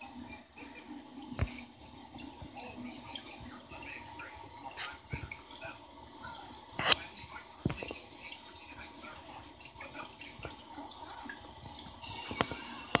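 Steady trickle and bubbling of aquarium water, with a few sharp clicks scattered through it, the loudest about seven seconds in.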